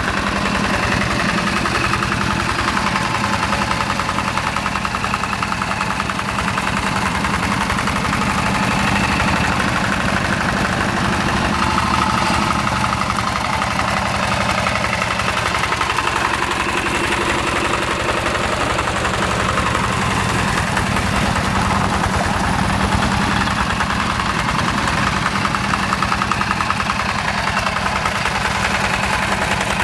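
Yanmar TF85 single-cylinder diesel engine of a two-wheel hand tractor running steadily while the tractor works through paddy mud.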